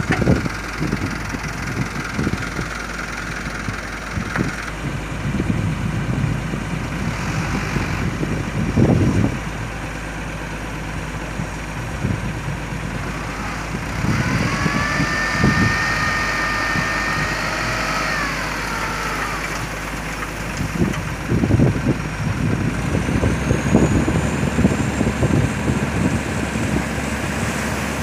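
Hino Dutro dump truck's diesel engine running while the hydraulic hoist tips the loaded bed. A steady whine holds for about five seconds midway, and there are a few scattered knocks.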